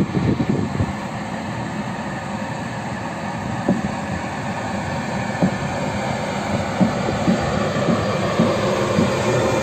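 Siemens ES64U4 electric locomotive pulling its train slowly away from the platform: steady electrical whine and fan noise with scattered sharp clicks from the wheels, growing louder as it draws past.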